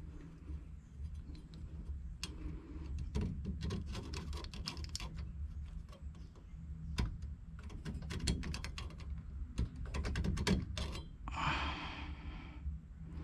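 Scattered small clicks, taps and scrapes from handling tools and copper water pipe, in two busy spells, with a short breathy hiss near the end over a steady low hum.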